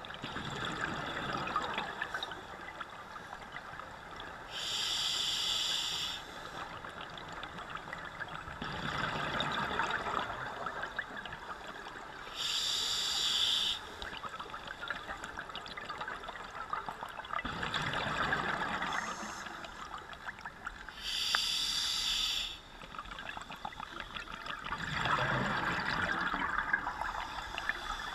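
Scuba diver breathing through a regulator underwater, heard from the camera: a short hiss of each inhale through the demand valve, then a longer rush of exhaled bubbles, in a slow cycle about every eight seconds.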